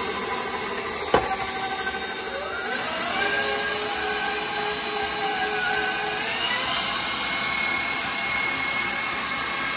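Electric stand mixer running, its flat beater turning through cookie batter in a stainless steel bowl: a steady motor whine that rises in pitch twice, about 3 and 6.5 seconds in. One sharp click about a second in.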